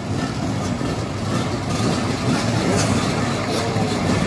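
Several motoball motorcycles idling together in a line, their engines running unevenly over one another, growing a little louder in the second half.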